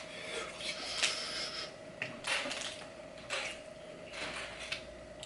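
Eating noises from a seafood mukbang: shells being cracked and pulled apart by hand, with irregular crackles, squishes and light clatter against a plate. A faint steady hum runs underneath.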